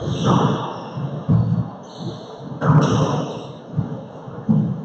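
Indistinct men's voices in an enclosed handball court, with a thud about two and a half seconds in.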